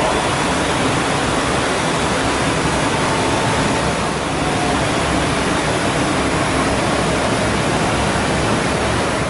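Creusen 6-inch 240 V bench grinder running steadily at speed, a loud even rushing noise with a faint whine.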